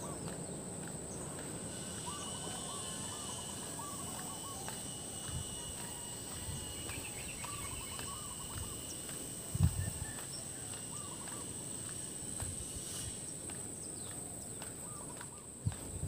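Rural outdoor ambience: a steady high-pitched insect drone with a second, lower insect tone through most of it, scattered short bird chirps, and a few soft footstep thumps on a paved road, the loudest a little past the middle.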